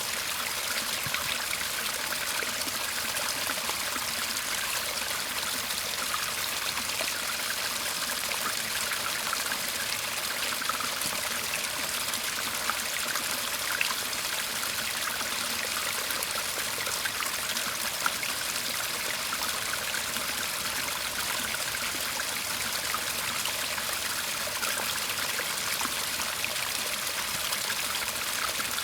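A shallow garden stream babbling and trickling steadily over stones, a continuous even water sound.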